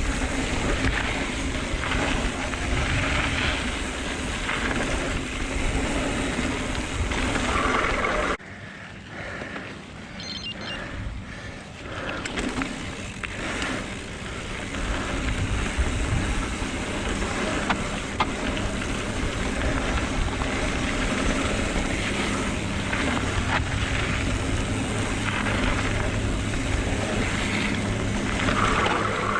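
Wind buffeting the microphone and tyre noise on dirt as a mountain bike is ridden through berms, a steady rushing rumble. It drops abruptly about eight seconds in, then builds back up.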